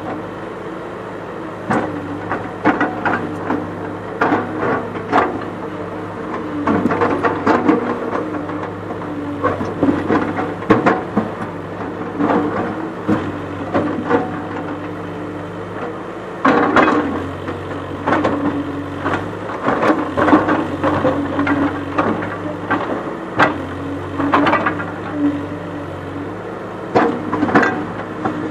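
Backhoe loader's diesel engine running steadily while its backhoe arm works among boulders, with repeated irregular knocks and clatter as the bucket strikes and shifts stones.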